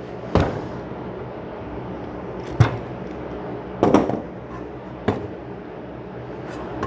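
Four sharp knocks and clunks of tools and workpieces being handled and set down on a workbench, spaced over a few seconds, against a steady background hum.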